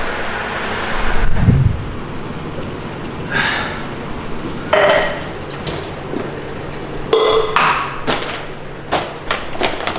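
Clinks and knocks of a stainless steel cup and its lid being handled at a kitchen counter, with one short metallic ring about seven seconds in. A dull thump comes about a second and a half in.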